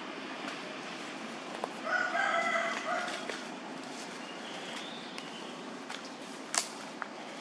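A rooster crows once, about two seconds in, a pitched call lasting about a second, over steady background noise. A single sharp click comes near the end.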